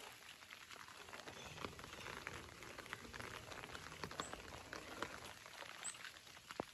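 Light rain falling on garden foliage: a faint, steady patter of drops ticking on wet leaves over a soft hiss. Two brief high chirps come through partway along.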